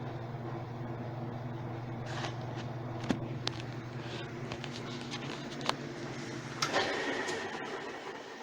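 Whirlpool top-load washing machine running with a steady motor hum and a few clicks and knocks, the hum cutting off about six and a half seconds in, followed by a brief rush of noise.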